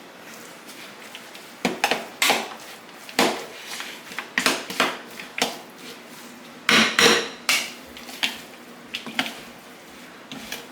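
A utensil knocking and scraping against a mixing bowl as chicken salad is mashed and stirred: a string of irregular sharp clinks, the loudest cluster a little past the middle.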